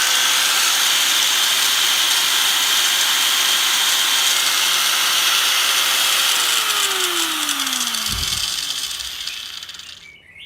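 Corded 100 V, 560 W electric power tool's motor running at one steady speed with a high whine, then switched off about six seconds in and winding down, its pitch falling, with a low knock as it slows near the end.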